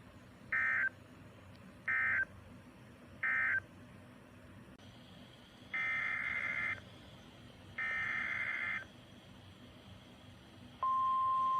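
Emergency Alert System SAME data tones: three short buzzy digital bursts of the end-of-message code, then two longer data bursts of the header for the next warning. About eleven seconds in, the steady single-pitch weather-radio warning alarm tone begins.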